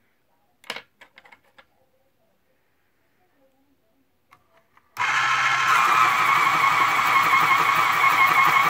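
A knock and a few light clicks about a second in; then, about five seconds in, a Westcott 15511 iPoint heavy-duty electric pencil sharpener starts suddenly and runs steadily as its blade cuts a pencil, really loud.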